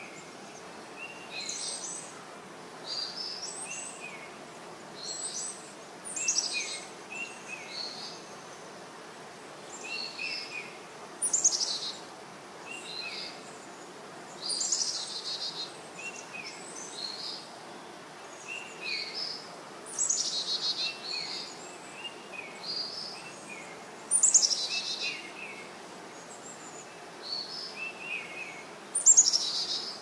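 Caged zebra finches calling: short calls repeated about once a second, with a louder, longer call every four or five seconds.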